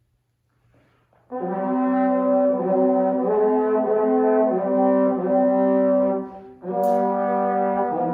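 Brass instruments playing slow, sustained chords, starting suddenly about a second in, with a short break between phrases near the end before the next chord comes in.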